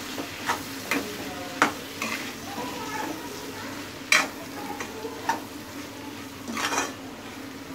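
A spatula stirs kidney beans and masala sizzling in oil in a metal kadhai, frying them together. Short sharp scrapes and knocks of the spatula against the pan come irregularly, about once a second, over a steady sizzle.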